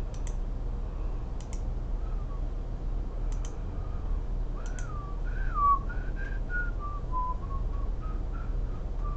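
A person whistling a slow, wandering tune, the pitch sliding up and down, starting about two seconds in. A few short clicks come in the first five seconds, over a steady low hum.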